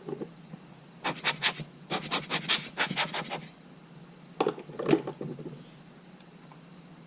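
Quick back-and-forth rubbing or scraping strokes for about two and a half seconds, then a few short knocks of something being handled.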